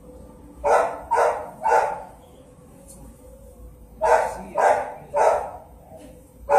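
Dog barking: a run of three barks about half a second apart, about a second in, then three more a little after the middle.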